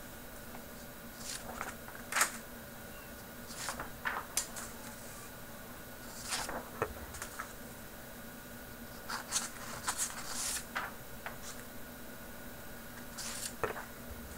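Keys of an Apple Extended Keyboard II being pressed: short runs of a few clacking keystrokes, with pauses of a second or two between runs.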